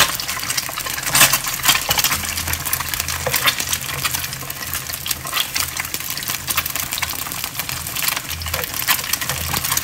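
Eggs frying in oil in a non-stick pan, sizzling steadily, while a spatula scrapes and taps against the pan bottom in many short clicks as the eggs are moved.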